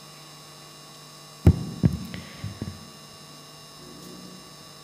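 Steady electrical mains hum, broken about a second and a half in by one loud low thump and then a few softer knocks over the next second.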